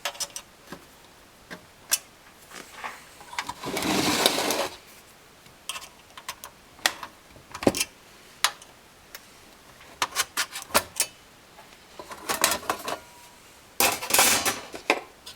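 Small flat-blade screwdriver prying at the slots of a factory GM car radio's thin sheet-metal bottom cover: scattered clicks and metal taps, with longer scraping rattles about four seconds in and twice near the end.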